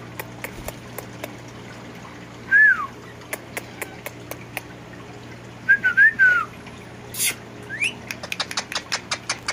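Short clear whistled notes: one falling note about two and a half seconds in, a quick run of three or four around six seconds, and a rising note near eight seconds. A brief hiss comes at about seven seconds, and a patter of small sharp clicks thickens toward the end.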